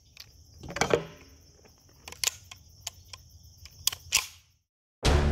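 Sharp metallic clicks and clacks, about nine spread irregularly, as a Grand Power Stribog SP9A1 9 mm carbine is handled and worked, with the loudest clack about a second in. Loud music cuts in suddenly at the very end.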